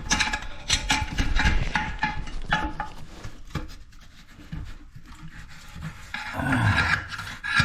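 Wrench working loose the old flush-valve nut on a toilet tank: metal scraping and clicking against the nut, busiest in the first few seconds, then quieter.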